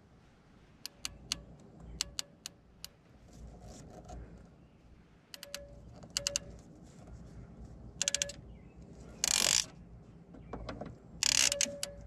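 PEX-style hose-clamp ratcheting crimp tool clicking in short runs as its handles are squeezed, pinching a clamp down onto a rubber AC hose. Two louder, longer rasps come in the second half.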